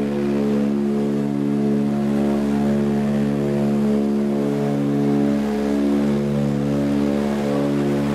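Ilyushin Il-18's four Ivchenko AI-20 turboprop engines and propellers droning steadily, heard inside the passenger cabin in flight. The hum swells and fades every couple of seconds.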